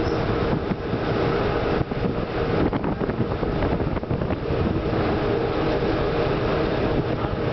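River sightseeing boat under way: its engine drones steadily, with a constant rushing noise over it.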